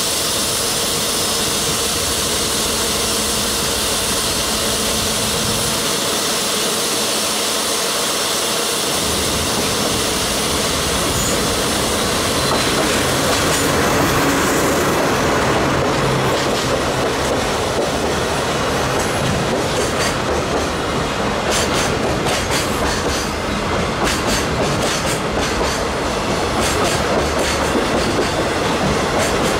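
JR Freight DD51 diesel-hydraulic locomotive running with its twin diesel engines, a steady rumble that grows louder around halfway as it moves past. From about halfway, the wheels of a container freight train's wagons click steadily over the rail joints as they roll by.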